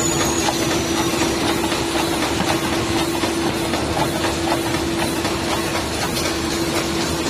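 Automatic book sewing machine running: a steady mechanical din with a constant hum and faint ticks.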